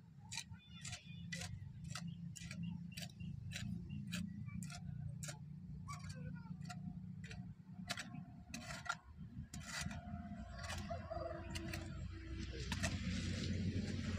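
Hand hoe blade chopping and scraping through a heap of soil mix, a quick run of sharp strikes about three a second, turning into denser, rougher scraping from about ten seconds in.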